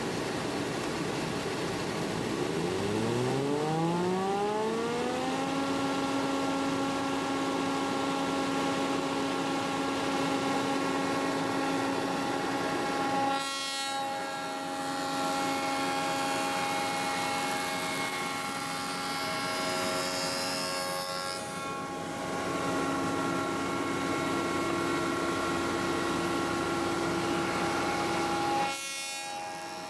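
Spindle shaper with a glue joint cutter starting up, its whine rising in pitch over about three seconds, then running steadily at speed while a board is fed through by the power feeder.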